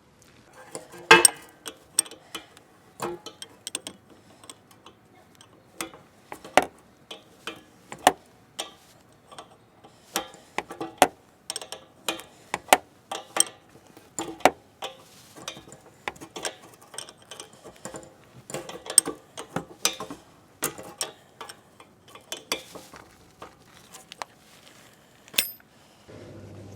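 Irregular sharp clicks and clinks of hand tools and metal fittings being handled, sometimes several in quick succession.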